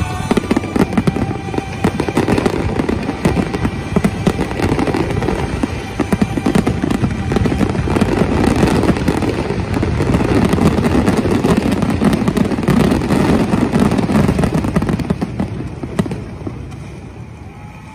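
Aerial fireworks barrage: many shells bursting in quick succession with dense bangs and crackling, dying away near the end.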